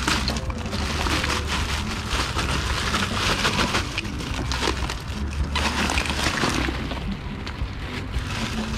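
A clear plastic bag of ice crinkling and rustling as hands work it into a cooler packed with ice.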